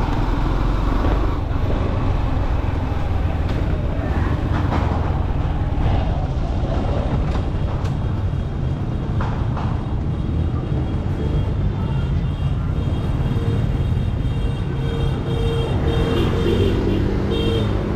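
Motorcycle engine running at low speed, with road and wind noise as the bike rolls along a city street. In the last several seconds a steady higher tone comes in over it.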